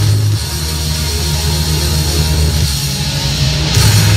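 Heavy rock music with electric guitar, playing loud, with a rush of noise coming in near the end.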